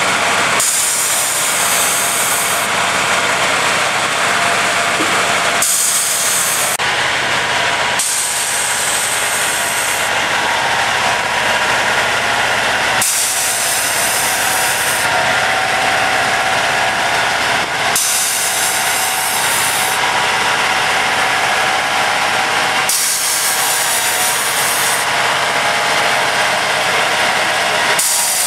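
Track tamper machine running, a steady engine and hydraulic whine. A higher hiss switches on and off every two or three seconds.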